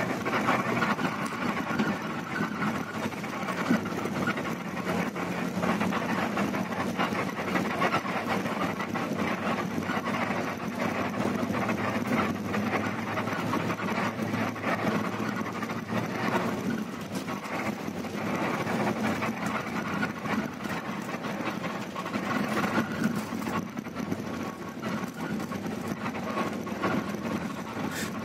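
Inside a moving bus's cabin: the engine and road noise run steadily, with frequent knocks and rattles as the bus drives over a narrow, rough, potholed road.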